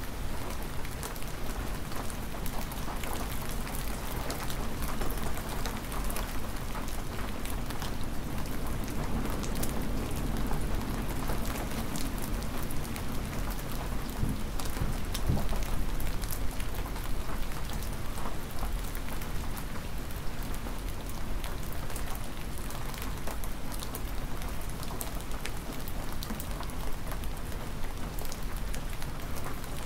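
Hard spring rain falling steadily: a dense hiss of rain with many sharp individual drop strikes close by, over a steady low rumble.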